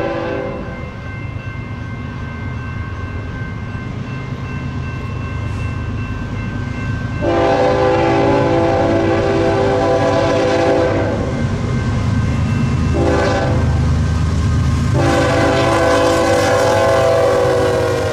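BNSF diesel freight locomotive's multi-note air horn sounding the long, long, short, long grade-crossing signal: one long blast ends about a second in, then comes a second long blast, a short one, and a final long blast that is still sounding at the end. Underneath is the low rumble of the locomotive engines and the wheels of a double-stack intermodal train, growing louder as it draws near and passes.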